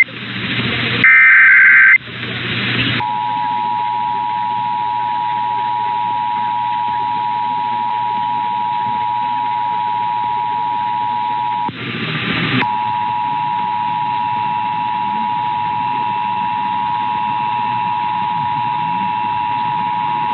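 Emergency Alert System test signal received over a radio: a one-second burst of SAME header data, a harsh warbling screech, between bursts of radio static, then from about three seconds in the steady two-tone EAS attention signal (853 and 960 Hz), broken by about a second of static near the middle.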